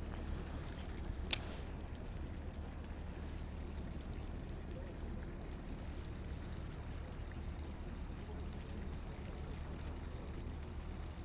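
Steady low rumble of wind on the microphone, with one sharp click about a second in.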